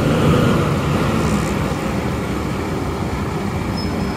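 Diesel engine of a Volvo B11R coach running close by, a steady low rumble as the bus manoeuvres in the terminal.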